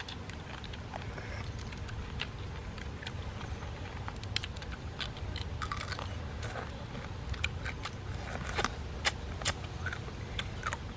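Boiled crabs being eaten: shells cracked and crunched between teeth and fingers, with chewing and sucking, in irregular sharp cracks and clicks over a low steady rumble.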